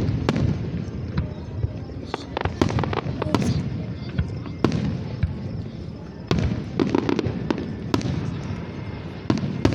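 Aerial fireworks going off: an irregular run of sharp bangs and pops over a low rumble.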